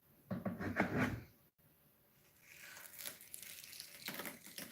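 Chisel levering a drawer front away from strong double-sided tape. A brief louder burst comes near the start, then a faint scratchy tearing and scraping runs through the second half.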